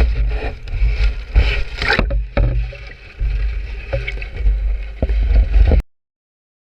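Low, uneven rumbling and buffeting heard aboard a small fishing boat. It cuts off abruptly near the end.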